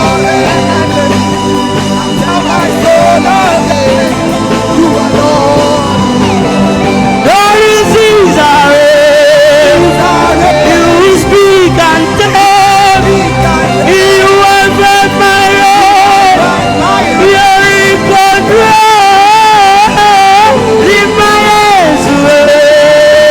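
Live gospel worship music: sustained keyboard chords, joined about seven seconds in by a voice holding long wavering notes.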